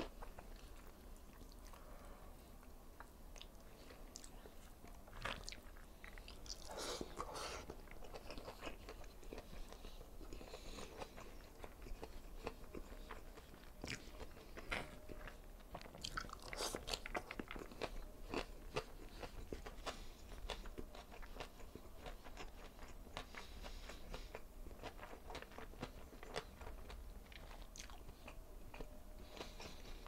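Close-miked chewing of a hand-fed mouthful of fried tilapia and rice, with wet mouth sounds and many crisp crunches, the strongest about a third and a half of the way through.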